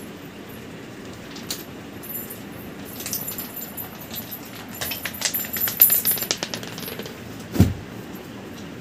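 A small bell jingling in quick, irregular tinkles as a playing kitten moves, thickest in the middle, with one dull thump about three-quarters of the way through as the kitten bumps close to the phone.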